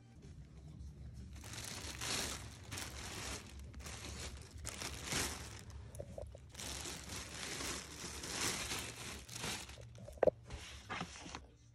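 Thin clear plastic bag crinkling and rustling as it is opened and pulled back, in several long bursts with short pauses. A single sharp click sounds near the end.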